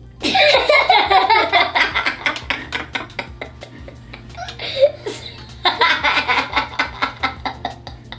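Two young girls laughing hard together in quick pulsing bursts. They break out suddenly, ease off in the middle, then burst out loudly again about five and a half seconds in.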